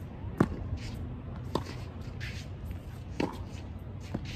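Tennis ball struck by rackets and bouncing on a hard court during a rally: four sharp pops spaced a second or more apart, the loudest about half a second in, with shoes scuffing on the court between them.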